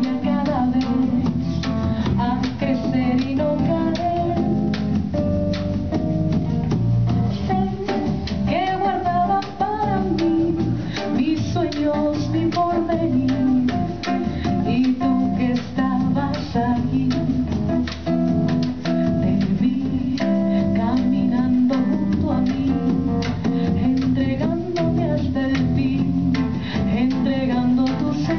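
Live acoustic song: a woman singing with acoustic guitar and percussion.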